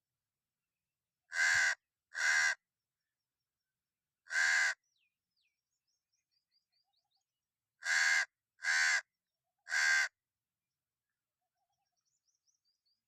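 Crow cawing: six harsh caws, a pair about a second in, a single one a couple of seconds later, then a quick run of three near the end.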